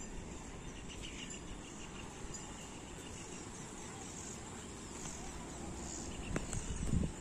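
Outdoor ambience: faint, steady high-pitched insect chirring over a low rumble of wind on the microphone, with a couple of knocks near the end.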